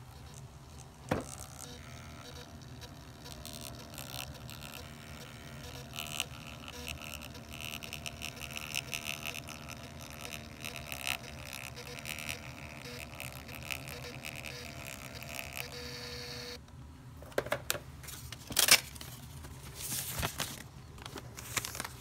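Small Testo receipt printer running, feeding out a combustion-test printout with a steady whirring buzz that stops suddenly about three-quarters of the way through. Then a few sharp clicks and rustles of the paper strip being torn off and handled.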